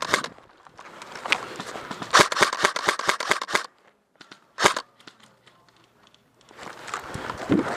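Airsoft gun firing full-auto bursts of sharp, rapid shots at about ten a second: one burst ends just as the sound begins, a longer burst comes about two seconds in, and a single loud shot follows near the middle.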